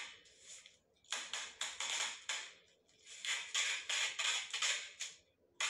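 Rustling and brushing close to the microphone in quick clusters of strokes, a group near the start, a longer run around the middle and one more near the end.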